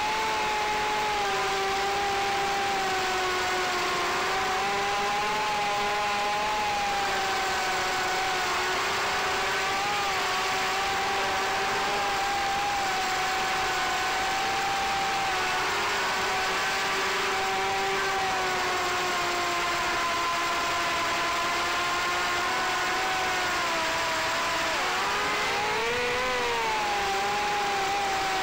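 FPV racing quadcopter's brushless motors and propellers whining, heard from the drone itself, with an airy hiss underneath. The pitch wavers up and down with the throttle and rises and falls quickly near the end.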